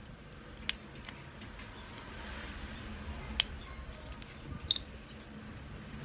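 LELE plastic building bricks clicking as they are handled and pressed together, a few separate sharp clicks spread over several seconds.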